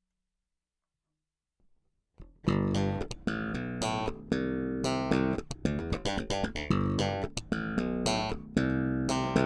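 About two seconds of silence, then a Warwick Pro Series Streamer Stage I electric bass guitar playing a quick run of plucked notes, several notes a second, each with a sharp attack.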